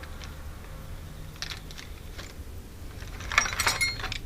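Small metal objects being handled, clinking and jangling: a few light clinks about a second and a half in, then a denser rattle of clinks near the end.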